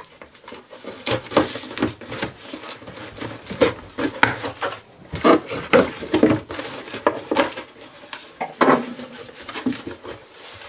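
Cardboard shipping box being cut and pulled open by hand. A blade scrapes through packing tape, with irregular cardboard scuffs, rustles and knocks.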